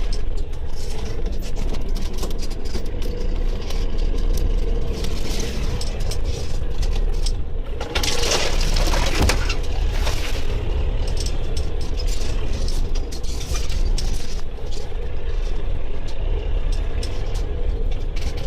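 Heavy machine's engine running steadily under load, with sharp cracking and snapping throughout and a louder rush of crackling about eight to ten seconds in, as of a tree breaking and going down.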